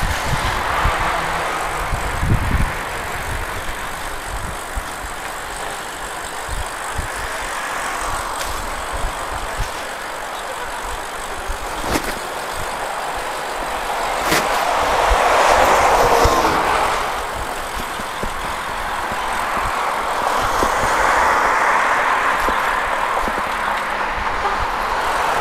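Wind and road noise on the camera of a road bike being ridden along a city street, with traffic around it: a steady rush that swells twice in the second half and is broken by low bumps and a few sharp knocks.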